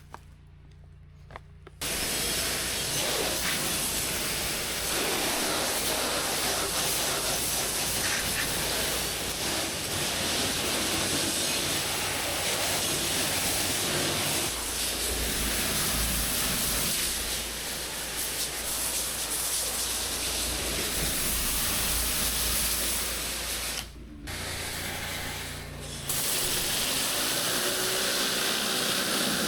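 Pressure washer spraying high-pressure water onto concrete: a steady loud hiss that starts about two seconds in, over the low hum of the machine, and briefly cuts out twice near the end.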